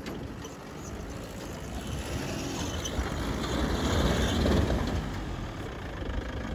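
Tata SUV cut down into a flatbed pickup, its engine running and its tyres churning through loose dry dirt as it drives close past. The rumble builds to its loudest about four seconds in, then eases a little.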